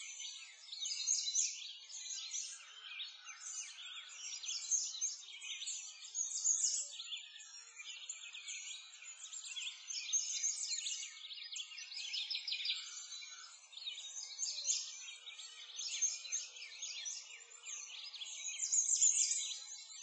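A dense chorus of small birds chirping and twittering, high-pitched, swelling and fading in waves.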